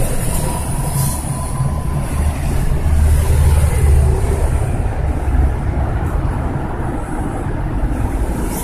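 City road traffic: a steady low rumble of engines and tyres that swells in the middle, with a red bus among the vehicles on the road.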